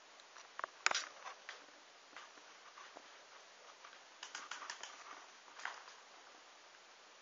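Scattered light taps and rustles: a sharper click about a second in, then a quick cluster of soft taps around four to five seconds in and a single tap near six seconds.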